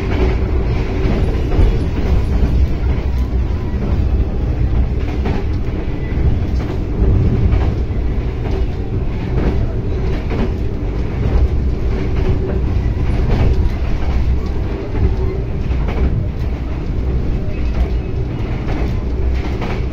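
Passenger train coach heard from inside while running at speed: a steady low rumble of wheels on rail, with scattered clicks and knocks.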